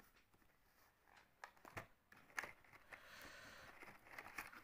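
Faint clicks and a soft rustle of a small cardboard earbud box being handled and opened.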